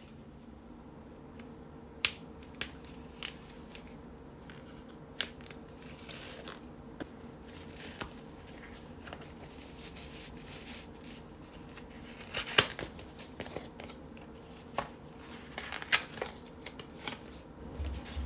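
Hands handling a packaged beige check cotton cloth: the paper header and cardboard insert rustle and tap, with scattered sharp clicks. The loudest come about twelve and a half and sixteen seconds in.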